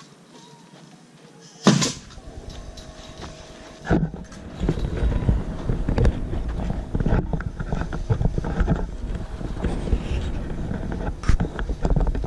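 Camera being picked up and moved by hand. There is a sharp knock about two seconds in and another near four seconds, then steady rumbling handling noise with many small knocks and bumps.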